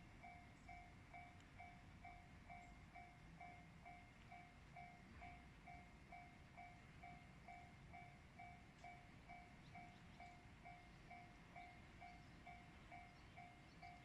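Japanese railway level-crossing warning bell ringing faintly, a steady electronic ding repeated quickly and evenly, warning that a train is approaching.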